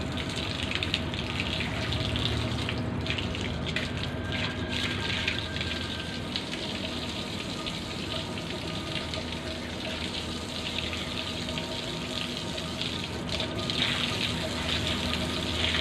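Water running and splashing steadily, as in hosing and washing sand dust off a floor.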